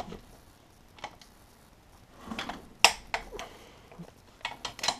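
Torque wrench, preset to 37 foot-pounds, and its socket working on transmission case bolts: a few sharp metallic clicks, the loudest about three seconds in, and a quick cluster of clicks near the end.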